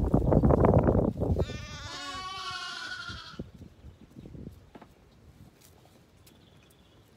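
Loud scuffling close to the microphone, then a Zwartbles lamb bleats once, a wavering call of about two seconds. A few faint hoof taps follow as a lamb walks on concrete.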